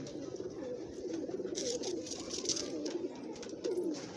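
A flock of Kasni pigeons cooing, many low, wavering coos overlapping one another. A scratchy rustle joins in about a second and a half in.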